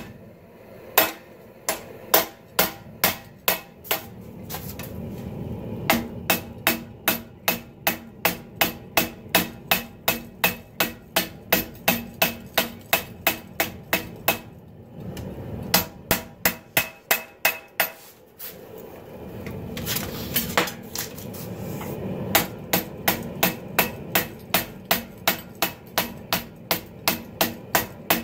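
Hand hammer beating red-hot 80CrV2 steel on a 66 lb cast steel anvil: sharp metal-on-metal blows, mostly in an even run of about two a second, with a few short pauses. This is drawing out the blade to form the point of a clip point Bowie. A steady low rush sits under the blows.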